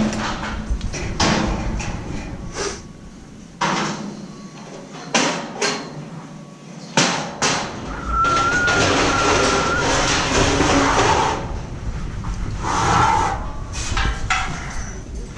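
Steel scaffold tubes and boards knocking and clanking as they are handled, a string of sharp metallic impacts. A few seconds of scraping, rushing noise come about halfway through, as of a board sliding across the deck.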